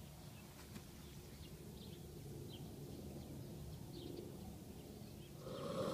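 Faint birds chirping now and then over a low outdoor rumble. A louder noise rises near the end.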